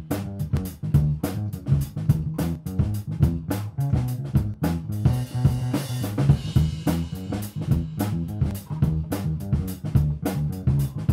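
Background music: a drum kit playing a steady beat over a bass line.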